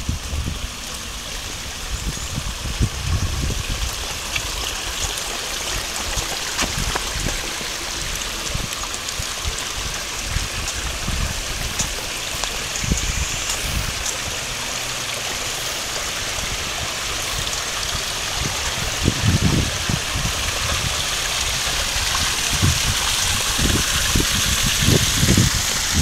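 Shallow stream babbling along a narrow concrete-lined channel, a steady rush that grows louder toward the end, with a few low thumps near the end.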